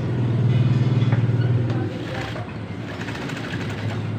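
Juki industrial sewing machine stitching fast for about two seconds, tacking elastic into the fabric edge, then running more softly with a short run of stitches again near the end.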